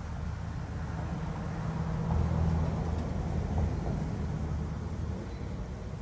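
A passing motor vehicle: a low engine rumble that swells about two seconds in and fades away again.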